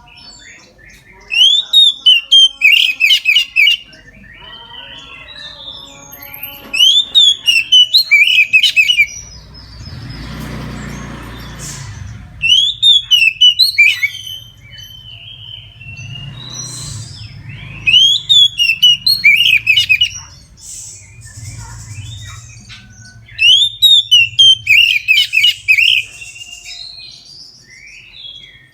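Oriental magpie-robin (kacer) singing loudly in five bursts of quick whistled and chattering notes, one burst about every five seconds.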